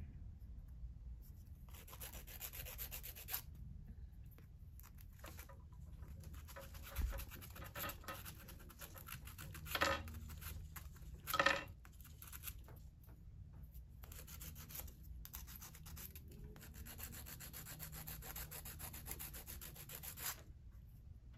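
Emery board rubbed back and forth over a small fired silver-clay (Art Clay Silver) piece, a faint dry rasping scratch in runs of a few seconds each, with two short louder scrapes about ten and eleven and a half seconds in. The filing polishes the fired silver clay to bring up its shine.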